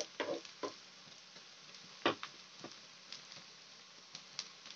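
Noodles shallow-frying in oil in a nonstick pan, a faint steady sizzle, with scattered light taps of a perforated metal spatula against the noodles and pan; the loudest tap comes about two seconds in.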